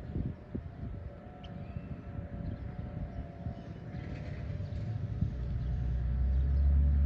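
Distant outdoor warning sirens sounding faintly during a city siren test, heard as a steady high tone over a low rumble that grows louder near the end.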